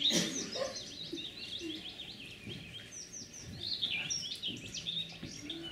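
Birdsong: many small birds chirping and twittering in quick, high, falling notes, busiest at the start and again about four seconds in.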